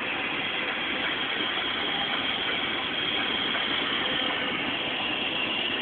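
Beach bonfire crackling, a steady dense run of fine pops and snaps.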